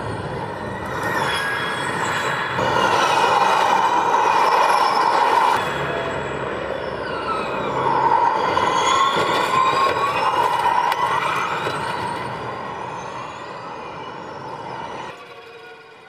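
Formula E electric race cars passing at speed, their motors and gearboxes giving a high whine whose pitch rises and falls as they go by. The sound swells twice and is cut between shots, dropping away sharply near the end.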